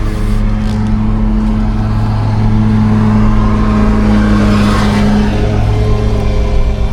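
Lawn mower engine running steadily close by, a loud, even hum that swells about halfway through as it comes nearer.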